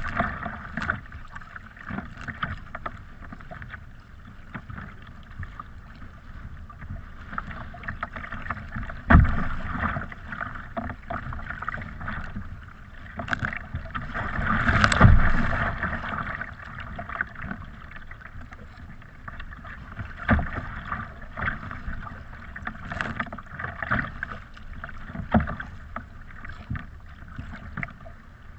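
Choppy open water slapping and splashing against the hull of a sea kayak, with sharp slaps every few seconds. About halfway through, a wave washes over the bow in the loudest, longest splash.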